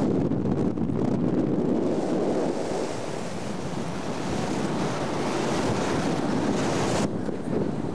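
Wind buffeting a camcorder microphone: a steady rumbling roar with no clear tones. A hiss builds over it from a few seconds in, and the sound changes abruptly about seven seconds in, at a break in the recording.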